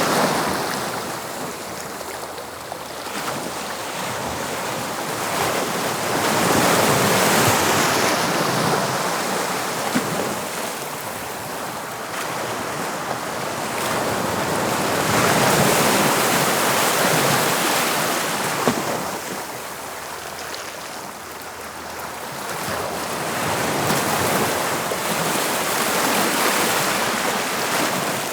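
Sea waves breaking and washing on the shore, the surf swelling and ebbing in slow surges every several seconds.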